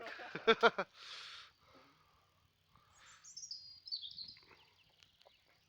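A small songbird singing one quick phrase of short high notes that step down in pitch, about three seconds in and lasting around two and a half seconds.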